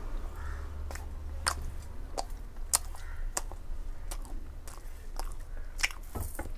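A person chewing a bite of soft steamed chana dal (Bengal gram) vada, with irregular small mouth clicks and smacks over a low steady hum.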